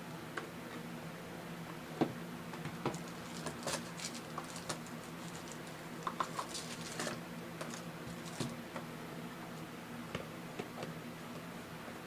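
Sports trading-card packs being handled and opened: irregular soft clicks, crinkles and rustles of wrapper and cards, busiest in the middle, over a steady low electrical hum.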